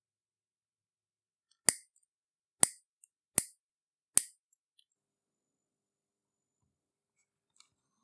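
Cutting pliers snipping thin spring-steel wire to cut small coil springs apart: four sharp snips about a second apart, with a faint tick near the end.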